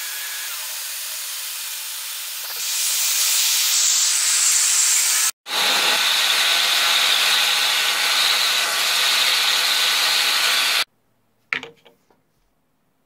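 Bandsaw running, joined about two and a half seconds in by the loud steady hiss of a vacuum cleaner drawing air through a dust-extraction housing under the saw table. The noise cuts off suddenly near the end, followed by a single knock.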